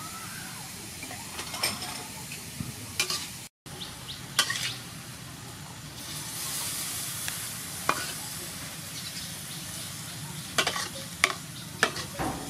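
Chopped chicken gizzards sizzling in a wok as they are stir-fried, with a spatula scraping and clacking against the pan several times over a steady frying hiss. The sound drops out for a moment a few seconds in.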